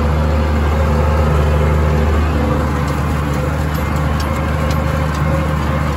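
New Holland farm tractor's diesel engine running steadily under load while pulling a seed drill through the field, heard from the operator's seat.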